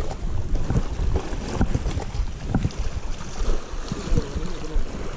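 Wind buffeting the microphone, with small sea waves washing against rocks underneath.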